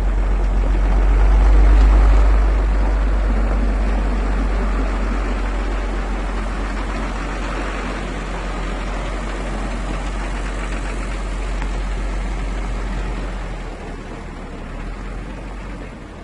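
Truck engine pulling away, a deep rumble that is loudest about two seconds in and then slowly fades as the truck moves off, dropping lower near the end.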